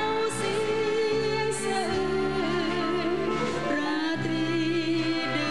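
A woman singing a Thai song, holding long notes with vibrato, over band accompaniment.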